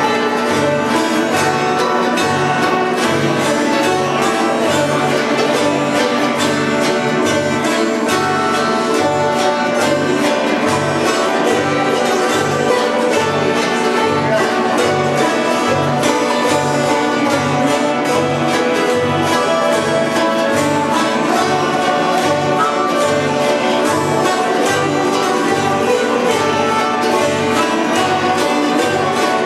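Instrumental bluegrass-style music with banjo, guitar and fiddle over a steady bass beat.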